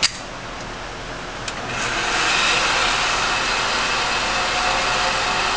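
A steady rushing noise, louder from about two seconds in, with a sharp crack right at the start and a fainter click about a second and a half in.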